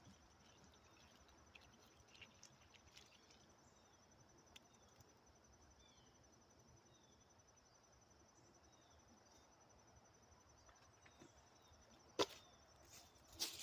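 Near silence: faint outdoor ambience with a few soft, high, falling chirps, then two sharp clicks near the end.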